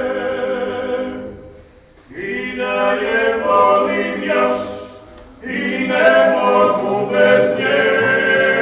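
Klapa vocal ensemble singing a cappella. The group sustains chords in phrases, with short pauses about two seconds and five seconds in.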